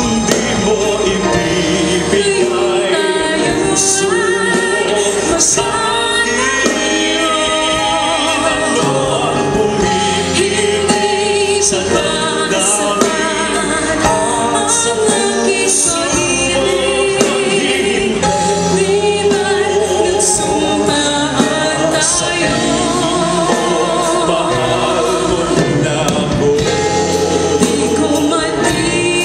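Live band playing a Filipino love ballad, with sung vocals over a full accompaniment.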